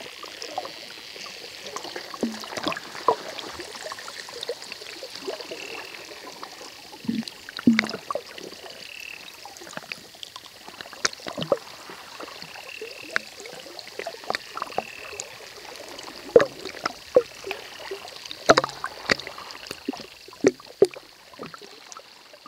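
Hydrophone recording of underwater sound: water hiss with irregular sharp clicks and several drifting buzzing tones at once, like drowning crickets, which the recordists believe is dolphins communicating.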